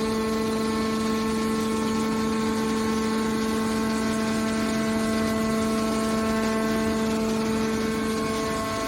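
Hydraulic metal baler's power unit running with a steady, even-pitched whine over a background of machine noise.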